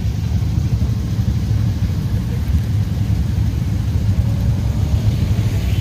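Wind buffeting the microphone while riding on a moving motorbike: a steady, heavy low rumble mixed with road and traffic noise.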